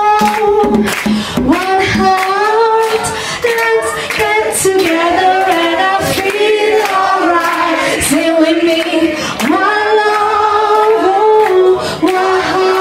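Female reggae vocalist singing live: long, drawn-out wordless notes that slide from one pitch to the next.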